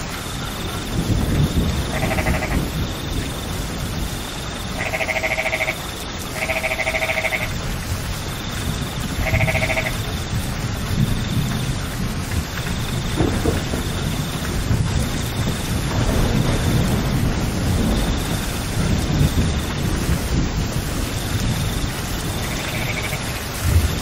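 Steady rain with a low rumble. An animal gives short bleating calls, four in the first ten seconds and one more near the end, over a faint high-pitched tone that pulses on and off.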